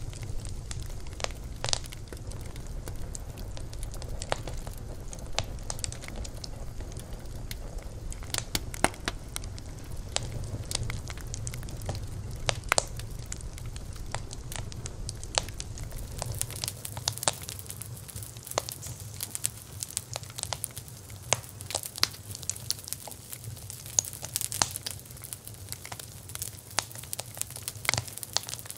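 Wood fire crackling, with irregular sharp pops and snaps over a steady hiss. A low rumble underneath drops away about halfway through.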